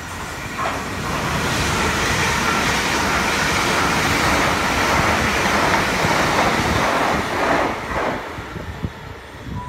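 South West Trains electric multiple unit running past close along the platform, a loud rush of wheels on rail and moving air. It builds over the first second or two and falls away about eight seconds in.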